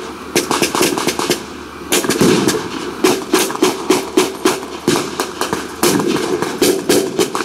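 Blank-firing rifles and machine guns in a reenactment battle: many sharp, irregular shots, several a second, some coming in quick runs.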